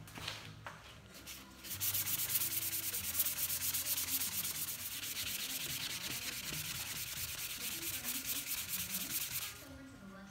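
Sandpaper rubbed by hand along a new hickory hammer handle in quick back-and-forth strokes. It starts about two seconds in and stops shortly before the end.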